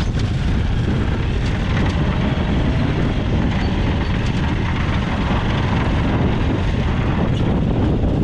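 Yamaha F6 portable outboard, a single-cylinder four-stroke, running steadily just after its first pull-start.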